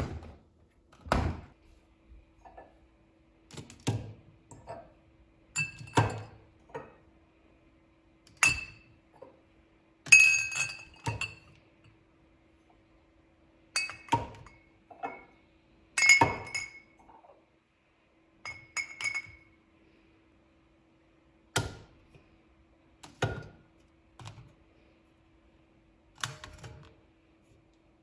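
Dishes and glassware being handled: clinks and dull knocks every second or two, some with a short bright ring, as things are picked up and set down on a hard surface. A faint steady hum sits underneath.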